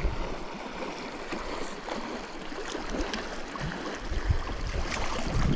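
Clear, shallow trout river running and gurgling, with a few short splashy knocks and a low rumble that builds near the end.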